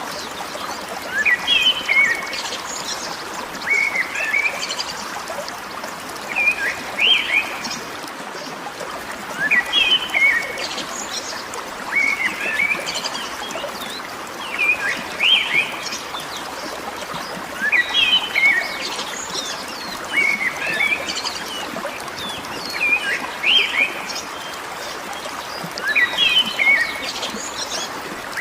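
Bird song in short chirping phrases, repeating about every two seconds, over a steady rush of water.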